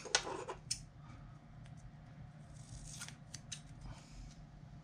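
Small scissors snipping a strip of fiberglass tape: a few short, sharp cuts, most of them bunched about three seconds in.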